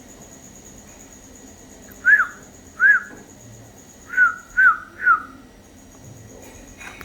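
A bird giving five short calls, each rising then falling in pitch, the first two about a second apart and the last three in quick succession, over a faint steady high-pitched tone.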